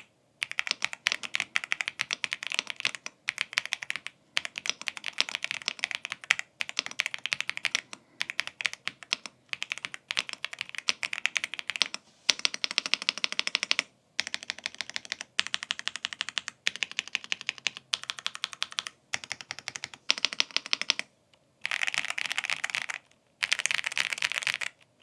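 Fast typing on an AULA F99 gasket-mounted mechanical keyboard with Leobog Reaper linear switches and PBT keycaps: rapid runs of keystroke clacks in bursts of a second or two, with brief pauses between them.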